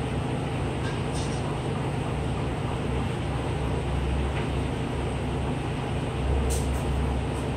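Steady low mechanical hum and rumble, with a couple of faint light clicks about a second in and again near the end.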